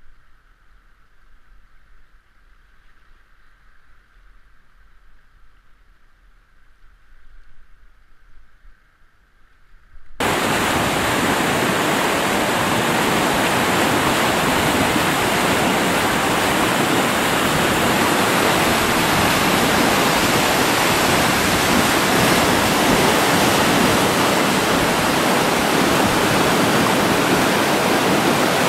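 River rapids rushing loudly and steadily. The sound cuts in suddenly about ten seconds in, after a stretch of faint sound.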